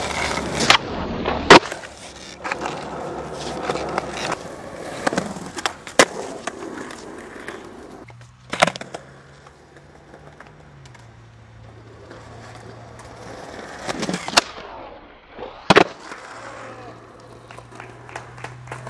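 Skateboard wheels rolling on asphalt, broken by several sharp clacks of the board's tail popping and landing, the loudest about a second and a half in.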